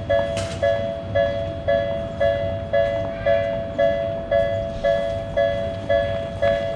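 Japanese railroad level-crossing warning bell ringing its steady two-tone ding about twice a second, the signal that a train is approaching and the crossing is closing.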